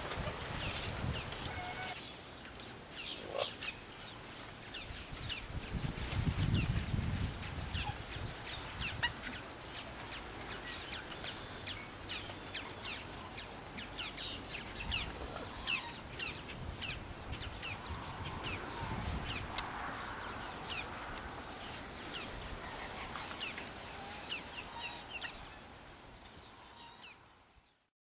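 Wild birds chirping in a wetland, many short high calls throughout, with gusts of wind rumbling on the microphone; the sound fades out near the end.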